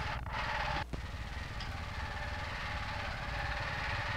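Steady hiss and low hum of a Super 8 film's magnetic sound track, with no speech. There is a short dropout about a second in, where the film shot stops and restarts.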